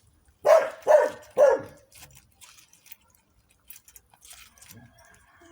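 Dog barking three times in quick succession, about half a second apart.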